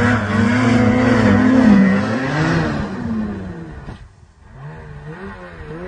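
Snowmobile engine revving. It is loud at first, dies down about four seconds in, then comes back more quietly, its pitch rising and falling as the throttle is blipped.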